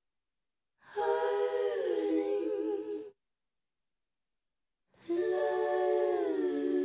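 Music: a wordless hummed or sung vocal line in two held phrases, each sliding down in pitch, with dead silence before and between them.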